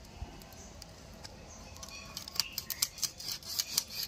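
Fish fins and skin being sliced against an upright iron cutting blade: a run of sharp, crisp clicks and scrapes that grows denser from about halfway.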